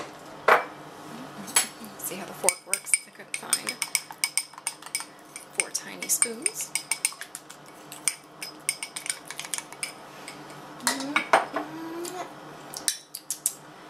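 A utensil clinking and tapping against a bowl while royal icing is stirred to mix in food colouring, in quick runs of sharp clicks with short pauses between.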